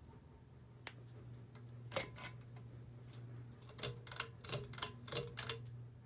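Sharp mechanical clicks from a ceiling fan's pull-chain switch being worked: one about a second in, a loud pair around two seconds, then a quick run of clicks near the end. A steady low hum runs underneath.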